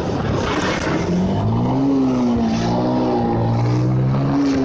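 Bajaj Pulsar motorcycle engine running on the move, with wind and road noise. A rush of noise from a bus passing close comes in the first second. The engine pitch rises about a second in, wavers, holds, and drops sharply near the end.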